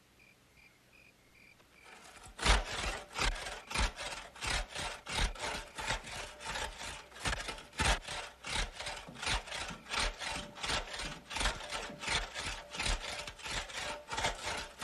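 Hand saw cutting through wood with steady back-and-forth rasping strokes, about two a second, starting about two seconds in.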